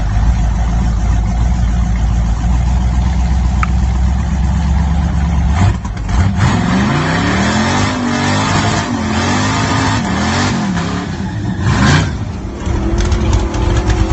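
Nitrous-fed 408 cubic inch small-block Chevy V8 in a Mazda pickup, running low and steady for about six seconds, then accelerating hard, its pitch climbing and dropping several times as it shifts through the gears.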